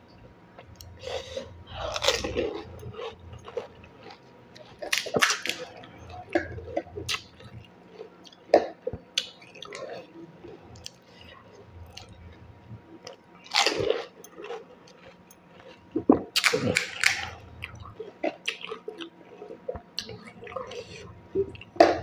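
Golgappa (panipuri) being eaten close to the microphone: crisp fried atta puris filled with spicy green water are bitten and chewed. There are sharp crunches every few seconds, with softer, wetter chewing between them.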